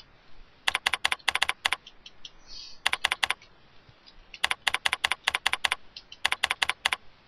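Computer keyboard being typed on: four quick runs of clicking keystrokes with short pauses between them.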